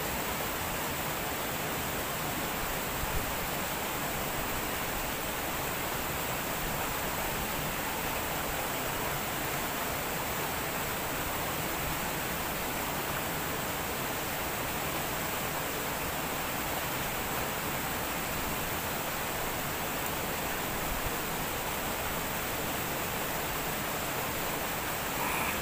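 Steady rush of a shallow stream flowing over rocks, an even hiss of water that does not change.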